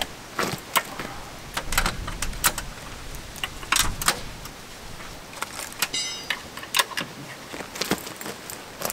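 Rummaging in a bus's side storage bay: a run of short knocks, clicks and clatter as things are moved about, with a brief high ringing rattle about six seconds in.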